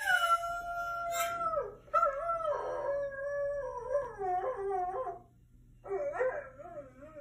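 A dog howling, played through a laptop's speakers: long wavering howls, a short break about five seconds in, then another howl begins.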